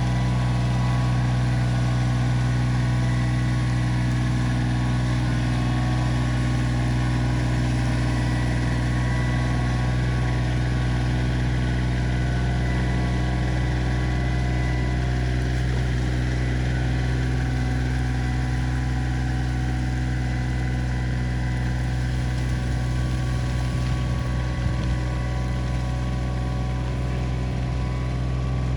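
Kioti CK2610 compact tractor's diesel engine running steadily at a constant speed.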